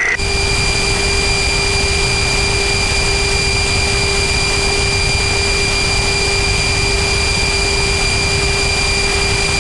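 Steady rushing noise of a military jet's cockpit in flight, with a few thin, steady whining tones on top.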